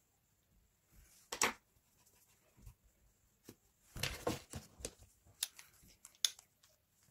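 Makeup tools and products being handled close to the microphone: a few sharp clicks and short rustles, the loudest about a second and a half in and a busier cluster around four to five seconds in.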